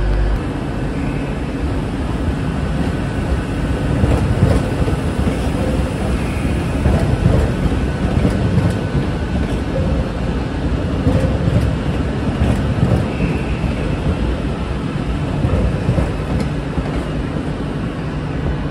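Passenger trains moving through the station past the platform: a steady rumble of wheels on the track, with faint ticks over it.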